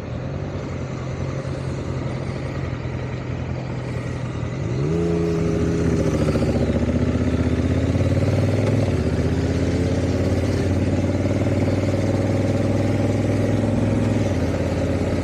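Honda Africa Twin motorcycle's parallel-twin engine heard while riding. The engine note rises about five seconds in as the bike speeds up, then holds steady.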